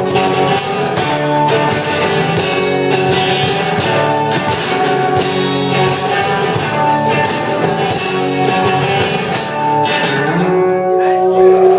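Rock band playing an instrumental passage led by guitar, with drums keeping a steady beat; the drums stop near the end, leaving a held chord as the song closes.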